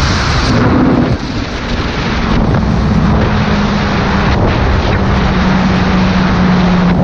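Sport motorcycle engine running at cruising speed under heavy wind buffeting on the microphone. The engine note dips briefly about a second in, then holds steady.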